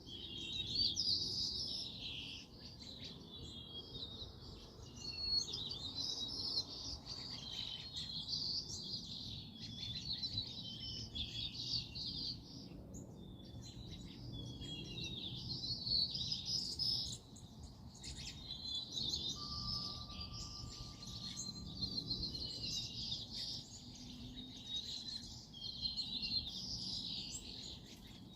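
Several songbirds singing and chirping at once in a near-continuous chorus of quick, high calls, with a faint low background rumble beneath.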